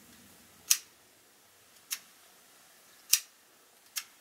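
Sharp plastic-and-metal clicks from a Pentax Espio 120SW compact film camera being handled with its back door open, four single clicks about a second apart.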